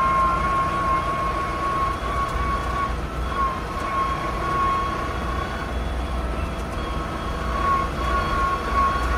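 SAME Explorer II tractor's air-cooled diesel engine running steadily as the tractor drives along the road, heard from the driver's seat, with a thin steady whine over the engine note.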